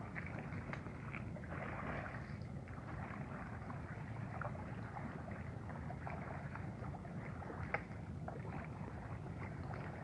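Water splashing and lapping around a small raft moving on the water, with scattered light knocks. There is one sharper click about three-quarters of the way through.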